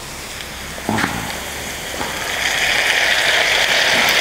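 Potatoes frying in hot clarified butter in a pan, sizzling steadily. A knock comes about a second in, then the sizzle grows louder from about two seconds in as the meat is added to the pan.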